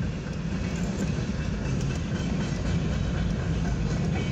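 Freight cars of a mixed freight train rolling past a grade crossing at about 32 mph: a steady rumble of steel wheels on rail, heard through a car's windshield.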